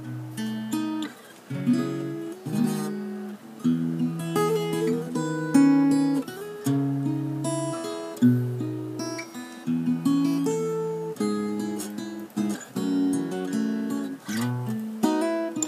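Acoustic guitar played fingerstyle: a plucked melody over bass notes, each note starting sharply and ringing as it fades.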